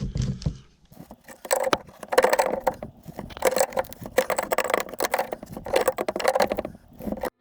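Spanners clinking and scraping on metal gas pipe fittings as they are tightened: a dense run of sharp metallic clicks starting about a second in.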